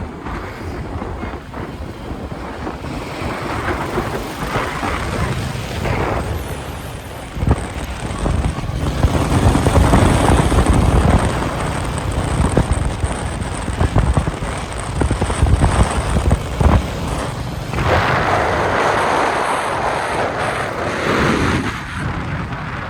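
Royal Enfield Meteor 350's single-cylinder engine and exhaust running at cruising speed, with wind noise on the microphone. It gets louder about eight seconds in as the bike pulls harder.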